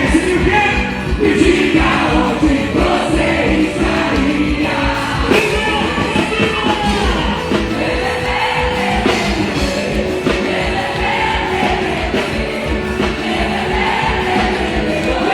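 Loud group singing over a steady, driving drum beat, many voices together like a crowd chanting a song.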